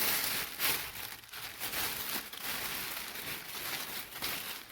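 Packaging being crinkled and torn open by hand to unwrap a circuit board, an irregular run of crackles and rustles.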